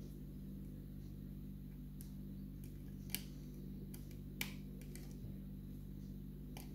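A short hook pick working the pins of a pin-tumbler challenge lock held under tension: a few light, separate clicks, the clearest about three seconds in, as pins are lifted and set. A steady low hum runs underneath.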